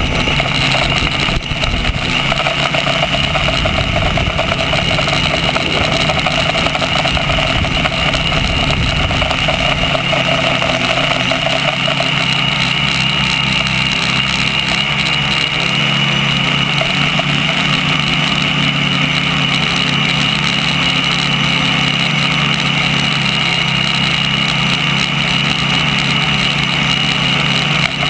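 Tricopter's three motors and propellers running in flight, heard up close through the craft's own onboard camera: a steady loud whine and buzz whose pitch shifts as the throttle changes partway through.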